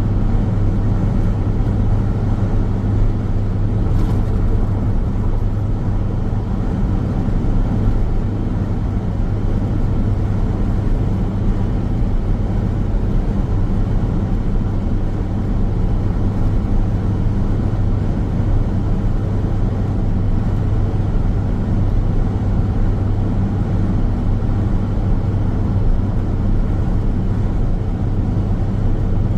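Road noise of a car driving along a highway: a steady low drone with a strong hum.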